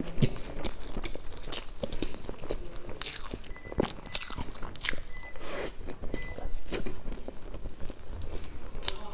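Close-miked chewing and mouth sounds of eating cream cake, with the plastic cake container crinkling and the metal spoon clicking against it in irregular sharp snaps.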